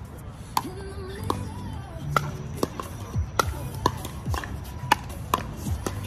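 Pickleball paddles striking the hard plastic ball in rallies: a quick, uneven series of about ten sharp pops, some from the game on neighbouring courts.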